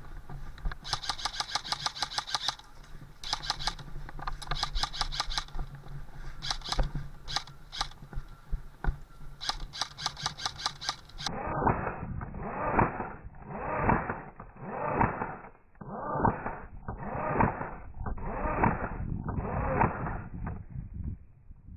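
Airsoft rifle firing in rapid full-auto bursts of sharp clicks, several bursts over about ten seconds. Then the sound turns muffled, with loud swells about every second and a half.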